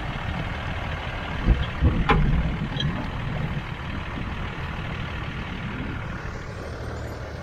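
An off-road 4x4's engine running steadily, with a few knocks around two seconds in.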